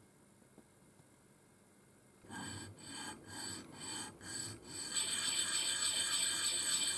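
The head of a steel hex bolt is rubbed back and forth on sandpaper laid flat, making a gritty rasp as the head is sanded smooth. It starts about two seconds in with about five separate strokes, roughly two a second, then turns into a quicker, steady, louder scratching.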